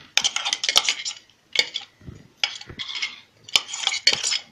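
Ground green chilli and garlic paste being emptied from a stainless-steel jar into a steel plate: a run of short metal-on-metal scrapes and clinks.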